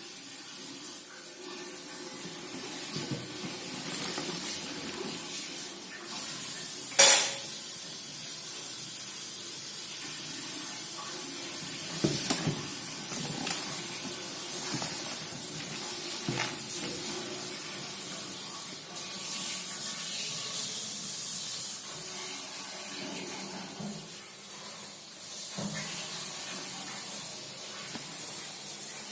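Water spraying steadily from a tap with a hiss, with a few sharp knocks or clicks of handling, the loudest about seven seconds in.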